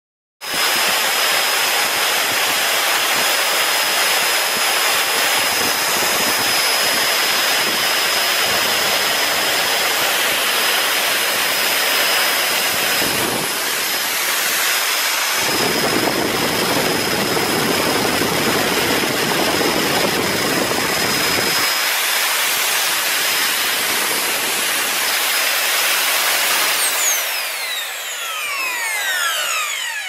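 Bare brushed vacuum cleaner motor with its two-stage impeller switching on suddenly and running at full speed, a loud steady rush of air with a thin high whine. Near the end it is switched off and winds down, its whine falling in pitch. It runs again after its commutator was skimmed clean of carbon deposits and its pitted brushes ground flat.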